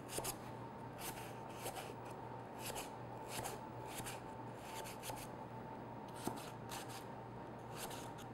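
Offset spatula scraping along the inside walls of a metal loaf pan in a string of short, irregular strokes, loosening a baked pound cake from the pan. Faint.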